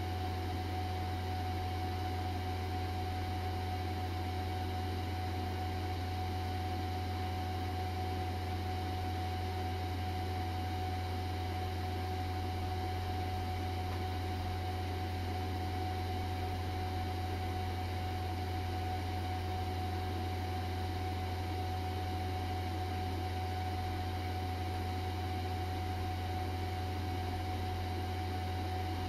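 Metcal HCT2-120 hot air rework station running steadily: the low hum of its internal air pump with an even hiss of air from the hot air pencil, and a faint higher whine above it, all unchanging.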